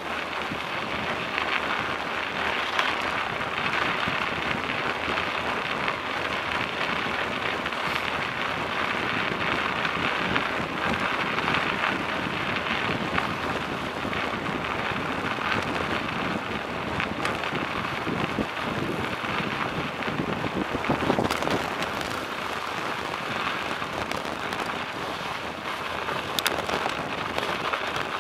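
Bicycle tyres rolling over a snow-covered road: a steady grainy crunching hiss with small scattered clicks, briefly louder about three-quarters of the way through.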